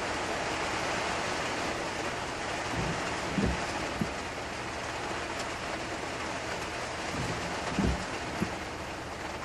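Steady rain falling, with a few short low thumps.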